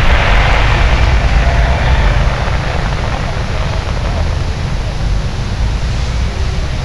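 Fireworks display dying away: a heavy low rumble from the bursts, with a hissing crackle at the start that fades over about two seconds.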